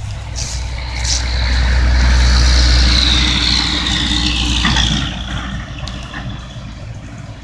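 A motor vehicle driving past on the road. A deep engine rumble swells to its loudest two to three seconds in, with a high whine that falls in pitch, then drops away about five seconds in.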